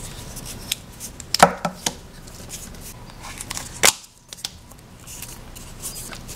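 Hard plastic toy parts and a Play-Doh can clicking and knocking as they are handled and the can is pulled off its plastic base: a few sharp clicks, the loudest about a second and a half in and just before four seconds.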